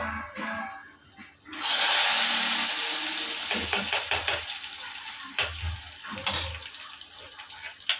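Food sizzling in a hot pan: a loud hiss starts suddenly, as something wet meets hot oil, then slowly dies down, with a few clinks of a metal utensil against the pan.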